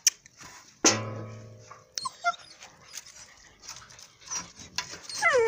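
White Swiss Shepherd and Saarloos wolfdog puppies whimpering and yipping. About a second in there is a sharp metallic clang that rings on for about a second, and near the end a puppy gives a falling whine.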